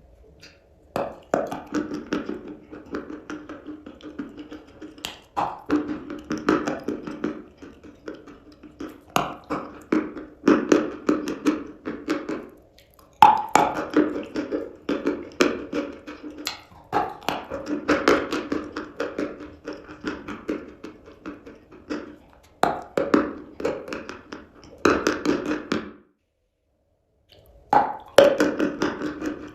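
Close-up crunching of chalk being bitten and chewed: dense crackling clicks in runs of a second or two with short pauses between bites, cut off to total silence for about a second and a half near the end.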